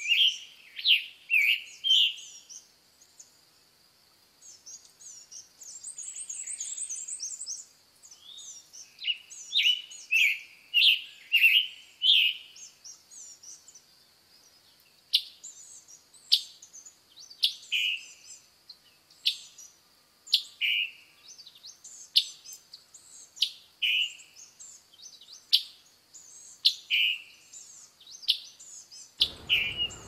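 Male scarlet tanager singing hoarse, burry, robin-like phrases for the first dozen seconds. From about halfway it repeats a two-note call, a sharp high chip followed by a lower burry note, roughly every second and a half.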